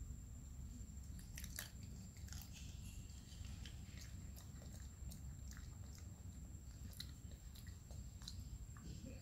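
A macaque biting and chewing small green fruits, with irregular crisp crunches and clicks.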